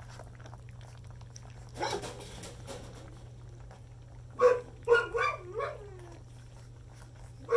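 Beagle puppies eating a wet gruel of ground dog food and goat's milk from a steel bowl, wet slurping and lapping about two seconds in. A little past halfway come several short high yips and a falling whine, with one more yelp at the very end.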